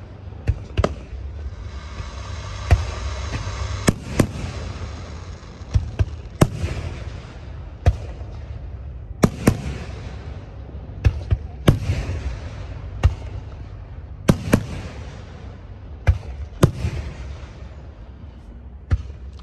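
Aerial fireworks shells launching and bursting: a string of sharp bangs at irregular intervals, roughly one a second, with a dense hissing crackle about two to four seconds in.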